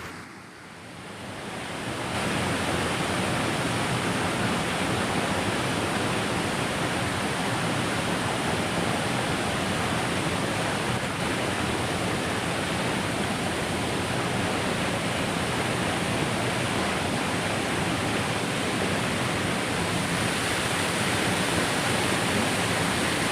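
Waterfall rushing: a steady, dense roar of falling water that swells up over the first two seconds and then holds even.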